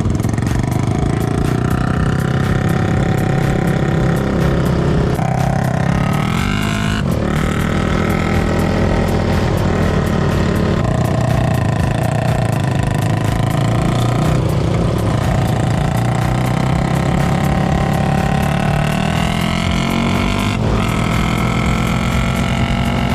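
A quad (ATV) engine running hard while riding. Its pitch climbs and then drops sharply several times as it shifts up through the gears.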